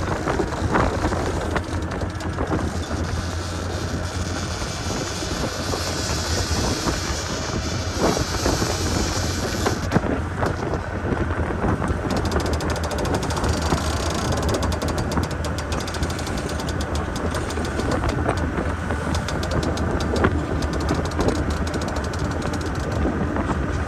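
Speedboat engine running steadily, with wind buffeting the microphone.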